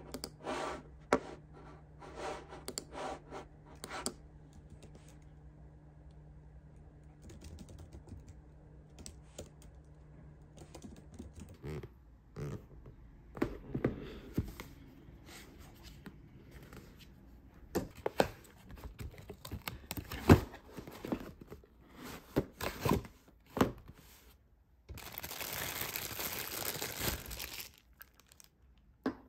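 Typing on a laptop keyboard with mouse clicks, then packaging being handled as an aroma diffuser is unboxed: clicks and knocks of the box and parts, plastic packaging crinkling, and a few seconds of steady rustling or tearing near the end.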